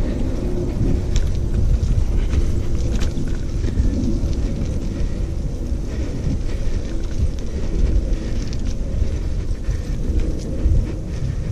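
Steady low rumble of wind and handling noise on the camera's microphone as it moves along a dry dirt trail. Scattered light crackles of dry leaves and grit run through it.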